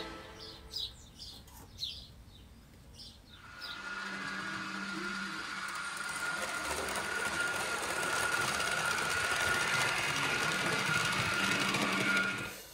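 A few faint high chirps, then from about three and a half seconds in a small electric motor running steadily with a thin whine and a low hum, cutting off just before the end: an N gauge model train running on the layout.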